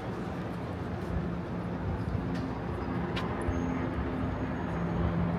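Steady city traffic hum with a low engine drone, and a short click about three seconds in.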